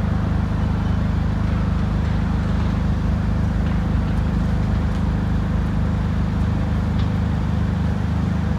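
Piling rig's diesel engine running steadily: a constant low drone with no change in level.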